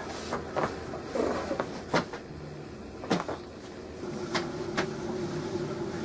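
Several sharp cracks from a back adjustment: the spine and joints popping as the person is squeezed from behind, the loudest about two and three seconds in. A steady hum starts about four seconds in.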